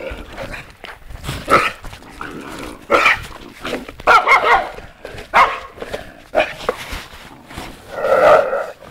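Stray puppies yelping and whining in a run of short, high cries, one every second or so.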